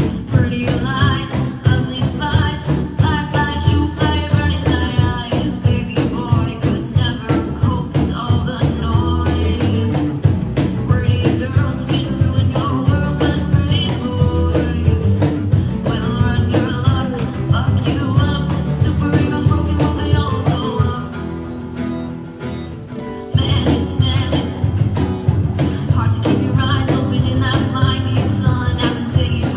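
A rock band playing live: guitar, bass and drums keeping a steady beat under a sung lead vocal. About twenty-one seconds in the drums drop out and the music thins for a couple of seconds, then the full band comes back in together.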